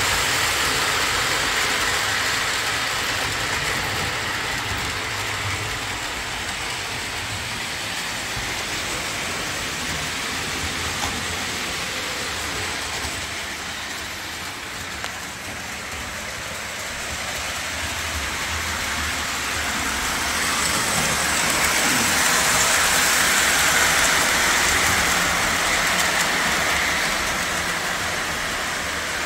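Lionel O-27 toy trains running on three-rail track: a steady rolling rush of metal wheels on rail that swells louder about two-thirds of the way through, as a train comes close.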